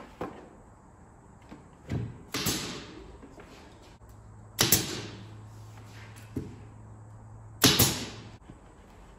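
Pneumatic nail gun firing three times into a plywood cabinet panel, each a sharp snap, the shots about two and three seconds apart. There are a couple of lighter knocks before the first shot, and a low steady hum between the second and third.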